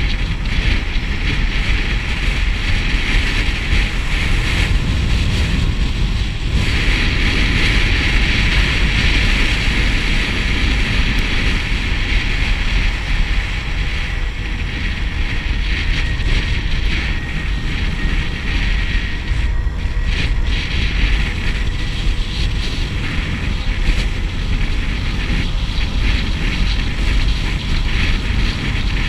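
Wind buffeting the microphone of a camera on a moving motorcycle, with the bike's engine running steadily underneath at cruising speed.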